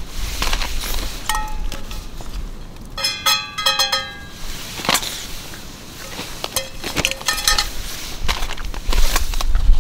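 Clinks and short metallic rings from a titanium camp bowl being handled, with a cluster of ringing clinks about three seconds in and a few scattered taps.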